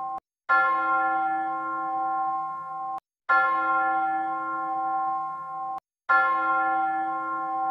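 A church bell struck three times, about once every three seconds. Each stroke starts sharply, rings on steadily with several tones, and then cuts off abruptly into silence.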